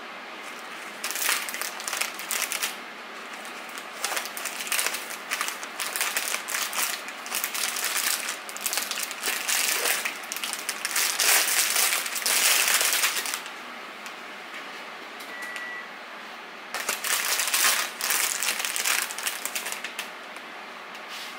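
Clear plastic bag crinkling and rustling as it is handled and cut open with scissors, in repeated bursts. It goes quiet for a few seconds, then crinkles again near the end as a scone is pulled out.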